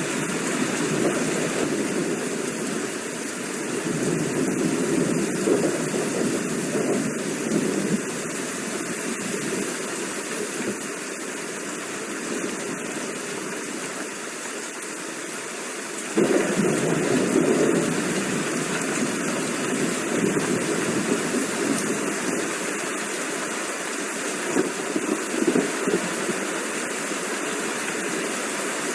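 Steady rain falling. About halfway through it becomes suddenly louder and fuller, then eases back.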